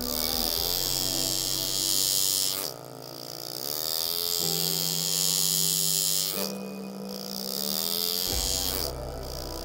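Ambient background music with long held notes, and over it a high buzzing from an engraving tool cutting stainless steel, running in stretches of two to three seconds with short pauses between.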